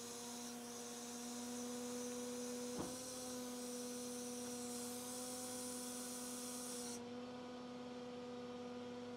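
PTO-driven hydraulic pump on a recovery truck, running as a steady hum with the engine held at about 1050 rpm to power the tilt-and-slide deck. One sharp click a little under three seconds in.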